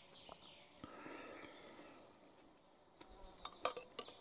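A fly buzzing close by for a second or two, then a few sharp clicks and taps near the end. Birds chirp faintly.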